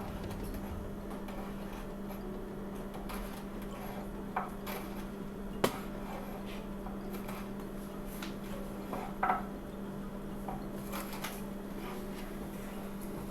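A handful of light clinks and knocks, spread out and the sharpest about halfway through, over a steady low hum.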